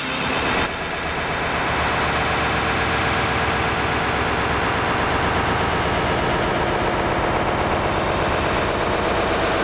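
Dense, grainy wall of static noise in the noisecore style, like blurred radio static mixed with rain hiss. It swells up over the first second or so, then holds steady and loud.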